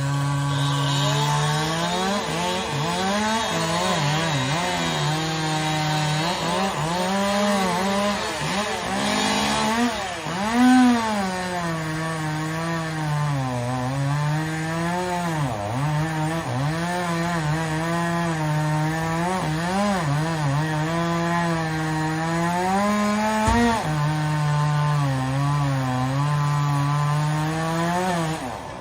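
Two-stroke chainsaw cutting wood, its engine pitch sagging and recovering as the chain bites. It revs up briefly to a higher pitch about ten seconds in, and there is a short knock near the end.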